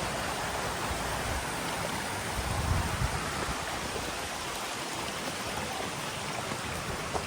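Steady rush of flowing water, with a few low bumps near the three-second mark.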